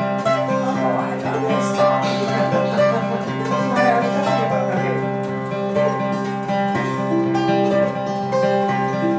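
Fingerpicked acoustic guitar playing an instrumental intro, plucked notes over a steady bass line.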